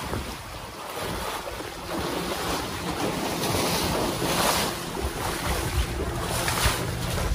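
Water splashing and sloshing around a wading African elephant's legs, with wind buffeting the microphone in a few louder gusts.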